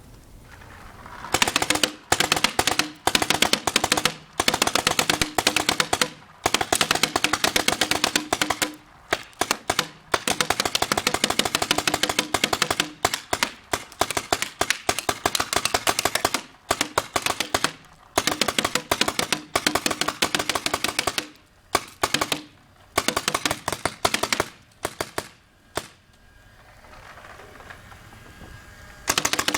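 M4-style semi-automatic paintball gun fired in long strings of rapid shots, with short pauses between strings and a quieter stretch near the end.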